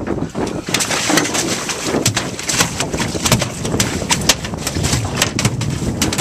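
A freshly landed Atlantic halibut thrashing on an aluminium boat deck: an irregular run of sharp slaps and knocks, about two a second.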